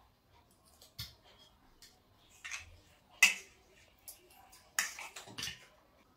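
Metal forks clinking and scraping on plates as sponge cake is cut and eaten: a handful of scattered light clicks and short scrapes, the sharpest about three seconds in.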